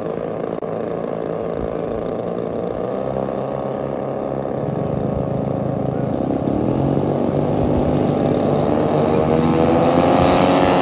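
Twin engines of a radio-controlled P-38 Lightning scale model running up on the takeoff roll. The pitch climbs and the sound grows louder through the second half as the model speeds down the runway toward the microphone.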